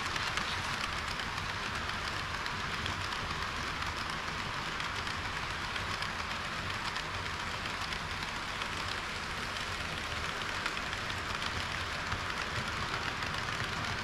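HO-scale model trains running on sectional track: a steady rolling hiss of metal wheels on the rails with faint fine clicking, a little louder at the very start as a model railcar passes close.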